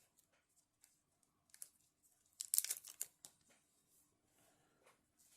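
Packaging of a Nendoroid figure being handled and unpacked: scattered small clicks and light rustling, with a short burst of crinkling about two and a half seconds in.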